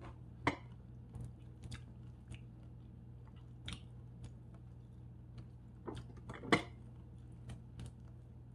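A person chewing and biting into crispy air-fried chicken, with scattered short crunches and mouth clicks; the two loudest come about half a second in and about six and a half seconds in.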